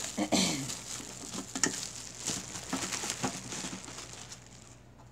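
Plastic bag crinkling and rustling as a humidifier part is unwrapped and pulled out, in an irregular run of crackles that dies down near the end.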